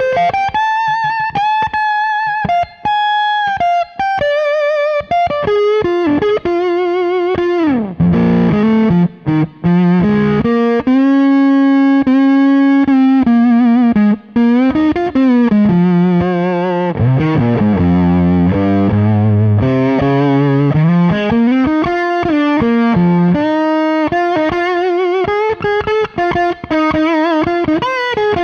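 PRS humbucker electric guitar through a Cornerstone NERO fuzz pedal, played as a free improvised lead. Long sustained single notes with wide vibrato and several upward string bends, and a run of lower held notes in the middle.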